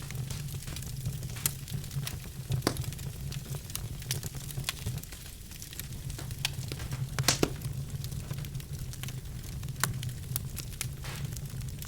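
Birchwood fire burning in a fireplace, crackling with scattered sharp pops over a steady low rumble; the loudest pop comes about seven seconds in.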